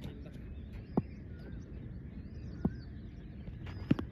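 Outdoor ambience: birds chirping over a steady low background hum, with three short sharp knocks spaced a second or two apart.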